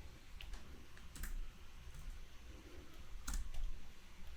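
A handful of separate, faint clicks from a computer keyboard and mouse, two of them close together past the three-second mark.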